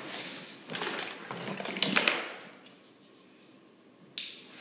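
Handling noise of tools being picked up: a rustle and a few light clicks and knocks, then one sharp click near the end.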